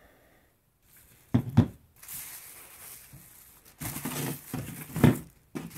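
Handling noise from unpacking: the hard plastic fog light housings knocked onto a table and plastic wrapping crinkling. Two sharp knocks about a second and a half in, rustling after, and another knock about five seconds in.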